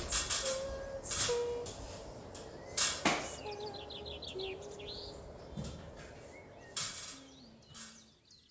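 A few sharp knocks and clatters, with short bird chirps between them, fading out near the end.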